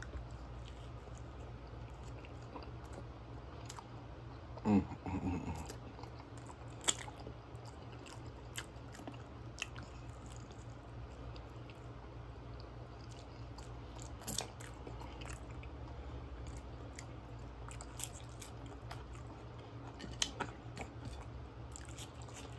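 Close-miked chewing of a grilled cheese Spam sandwich and sweet potato fries: wet mouth clicks and smacks scattered throughout, with a louder short mouth sound about five seconds in. A steady low hum runs underneath.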